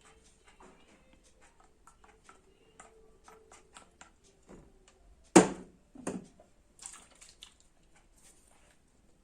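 Spoon stirring shaving-foam slime in a bowl: faint irregular clicks and taps of the spoon against the bowl, with a louder knock a little past halfway and a smaller one just after.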